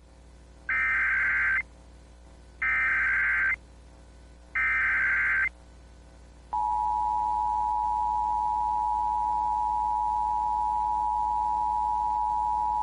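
Emergency Alert System SAME header: three warbling data-tone bursts of about a second each, a second apart, that encode a new alert. About six and a half seconds in, the steady two-tone EAS attention signal starts and holds.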